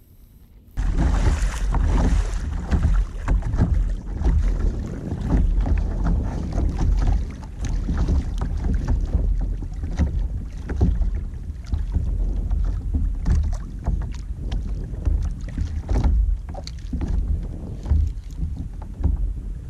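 Wind rumbling and buffeting on the microphone of a camera mounted on a sea kayak, with irregular gusty thumps, as the kayak sits on choppy water; it begins abruptly just under a second in.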